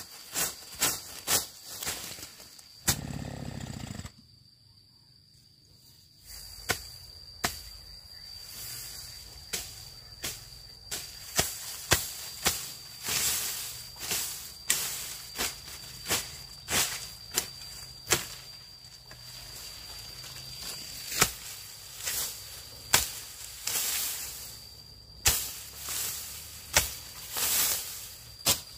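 Repeated sharp knocks coming irregularly, up to two or three a second, with a short pause about four seconds in, over a steady high-pitched insect drone.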